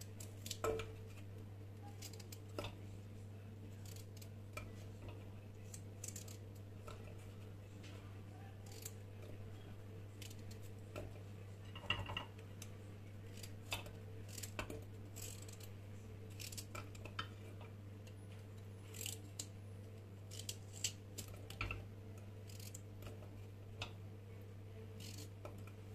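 A knife cutting raw carrot into chunks in the hand, the pieces dropping into a small non-stick pot: many short, sharp clicks spread out irregularly. A steady low hum runs underneath.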